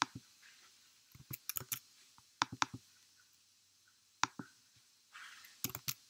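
Computer keyboard keys being typed, faint sharp clicks coming in short irregular runs with pauses between them.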